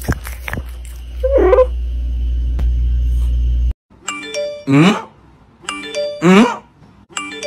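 A cat meows once, a short wavering call, over a steady low hum. About four seconds in, the sound cuts to a music track of repeating chime notes, each phrase ending in a falling swoop, roughly every second and a half.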